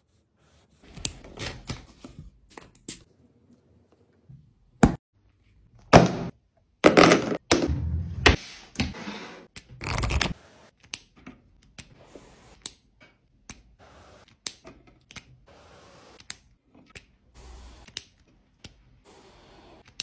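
Close-up stationery sounds: a highlighter scratching on grid paper, then a string of sharp taps, clicks and papery rustles as stationery is handled and a small pad's pages are flipped. The loudest, densest run of knocks and rustles comes about six to ten seconds in, followed by softer scattered ticks.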